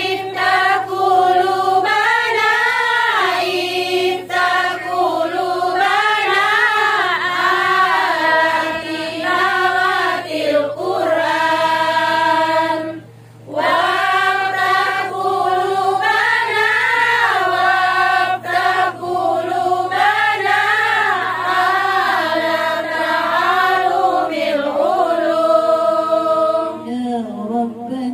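A group of women singing sholawat, an Islamic devotional song to the Prophet, together and unaccompanied, in long sliding melodic lines. The singing breaks briefly about 13 seconds in, and a steady low hum runs underneath.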